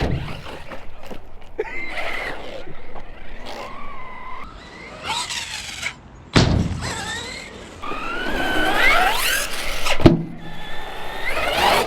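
Team Associated Rival MT10 RC monster truck's electric motor whining, its pitch rising and falling as the throttle is worked, with a sharp thud about six seconds in and another about ten seconds in as the truck lands from jumps.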